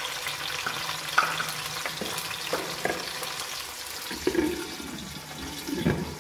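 Sliced onions sizzling steadily in hot ghee in a pot, with a few clinks and knocks of utensil against pot, then a glass lid clattering down onto the pot near the end.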